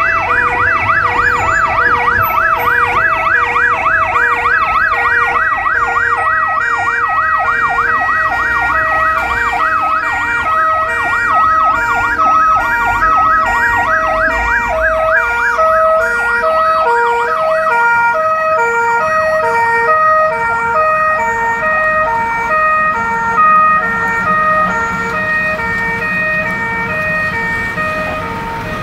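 Siren and Fiamm warning horns of a Volkswagen Crafter ambulance on an emergency run. A fast rising-and-falling yelp for the first few seconds changes into a slower alternating two-tone, which gets a little quieter near the end.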